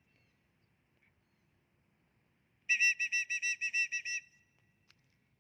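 A handheld whistle blown in a quick run of about nine short toots of one steady pitch, starting about halfway through and lasting about a second and a half.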